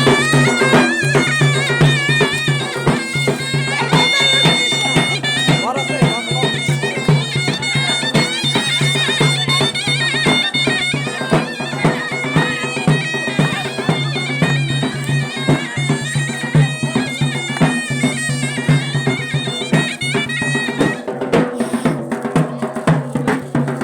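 Traditional folk music on a reedy wind instrument: a wavering high melody over a steady low drone, with a drum beating throughout.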